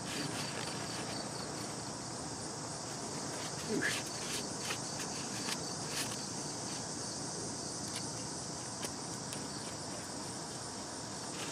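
Steady chorus of insects chirring in the grass, evenly pulsing and high-pitched, with a few faint clicks from hands working a bolt and rag about four to six seconds in.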